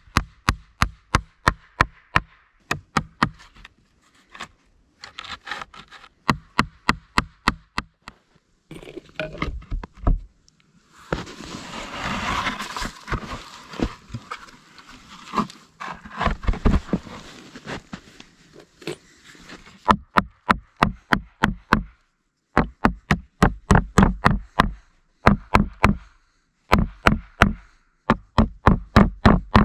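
Hammer driving nails into birch slab boards: quick runs of sharp blows, about three a second, with short pauses between nails. In the middle there is a longer stretch of scraping and rustling with scattered knocks.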